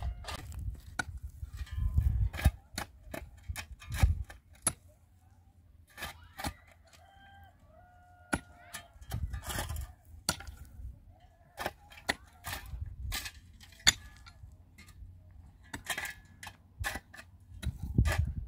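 Irregular sharp knocks and taps, with domestic chickens clucking now and then and occasional low rumbles.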